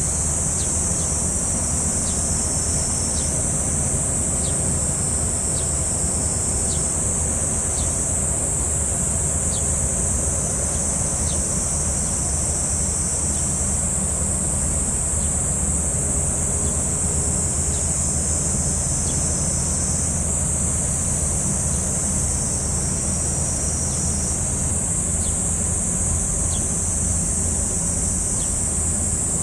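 A steady high-pitched insect chorus, with short falling chirps now and then, over the low, even drone of a large cargo ship's diesel engine passing by.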